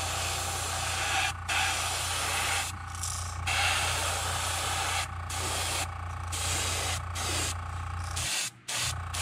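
Gravity-feed airbrush spraying paint in short hissing passes, stopping and starting many times as the trigger is let off and pressed again. A steady low hum runs underneath.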